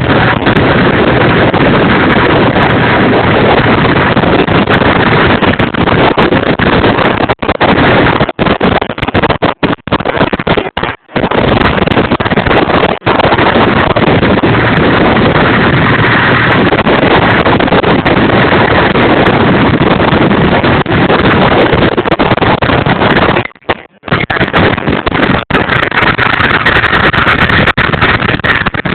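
Loud, steady rumbling noise of a vehicle driving off-road, with wind buffeting the microphone. The sound cuts out briefly several times, in a cluster around the middle and once more late on.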